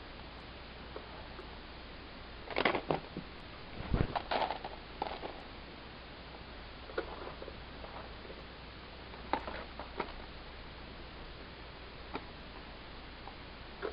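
Plastic soap-making containers and a plastic tray being handled and set down on a tabletop: short light knocks and clicks in a few scattered clusters over a steady hiss. The busiest clusters come a few seconds in.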